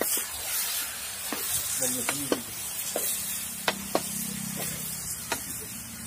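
Chicken pieces sizzling in a metal kadai over a wood fire while being stirred, the ladle clinking sharply against the pan about a dozen times at irregular intervals over the steady hiss of frying.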